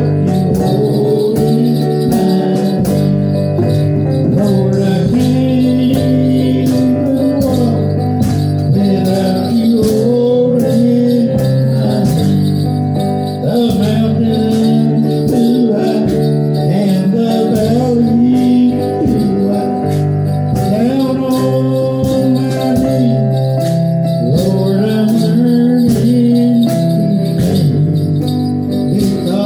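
A man singing a song into a microphone over instrumental backing music, amplified through a PA system.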